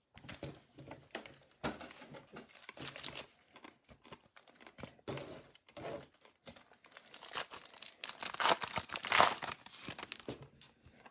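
Foil wrappers of Topps baseball card packs crinkling and rustling as the packs are handled. The crinkling gets louder a little past halfway, with tearing as a pack is ripped open.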